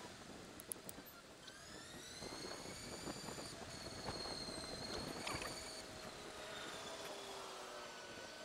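Electric bike's motor whining at speed over wind and tyre noise on asphalt; the whine rises in pitch over a couple of seconds, then holds. A few sharp knocks from the bike going over bumps.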